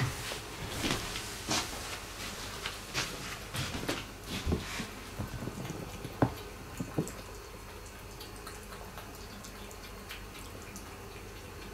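Cats eating from floor bowls: irregular wet clicks and smacks of tongue and mouth on food and bowl. They stop after about seven seconds, leaving only faint occasional ticks.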